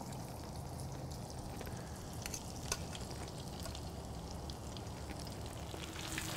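Breaded onion rings deep-frying in hot beef tallow at about 325–330 °F in a small stainless saucepan: a steady bubbling sizzle with a few sharp crackles.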